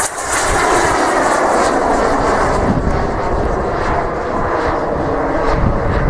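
Gas-turbine engines of radio-controlled Sukhoi Flanker model jets flying overhead: a steady jet whine and rush. The highest hiss thins out after the first second or so.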